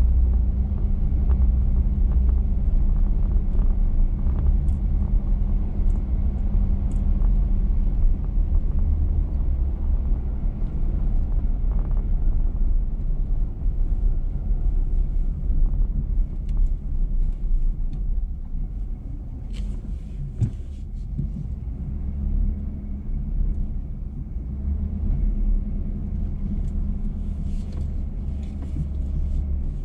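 A 2021 GMC Sierra X31 pickup driving on a sandy dirt road: a steady low rumble of engine and tyres. It eases off a little past the middle, where a few short knocks and rattles come through.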